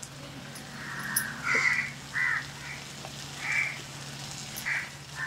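A crow cawing about five times, each caw short and separate, over a low steady hum.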